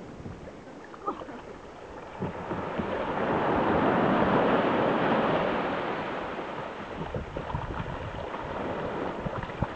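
A small wave breaks and washes up the sand, swelling about two seconds in and then fading away, with a few sharp knocks here and there.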